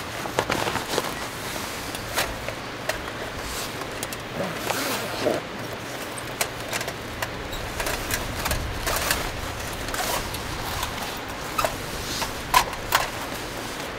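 Gear being handled by hand: the zip of a fabric pouch pulled open with rustling, then a folding steel mini wood stove lifted out, its metal panels giving a few sharp clicks near the end.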